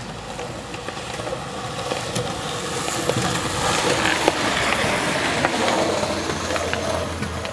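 Rain falling, a steady rushing hiss that swells for a few seconds in the middle and eases off near the end, with scattered sharp taps of drops.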